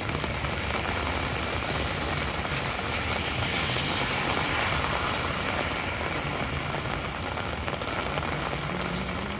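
Steady rain with traffic running on a wet street. A car's tyres swish on the wet road as it passes, the sound swelling about four seconds in.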